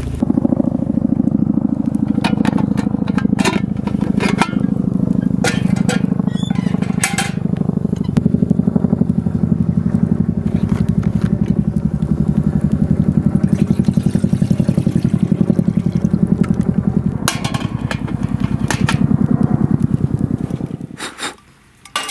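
An engine running steadily, a rapid even pulse that stops about a second before the end, with scattered knocks and clinks over it.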